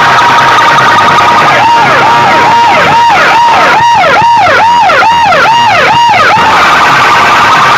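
Large banks of horn loudspeakers blaring a very loud electronic siren sound: a steady high tone that breaks, about two seconds in, into a quick run of rising-and-falling whoops, two to three a second, then settles back to a steady tone near the end.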